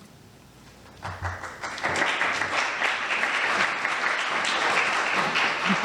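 A congregation applauding, starting about a second in and quickly swelling to steady clapping.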